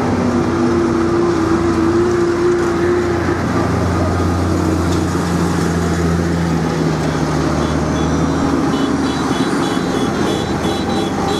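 A convoy of farm tractors driving slowly past, their diesel engines running with a steady low drone that swells in the middle as a JCB Fastrac goes by close. Near the end a rapid high beeping joins in.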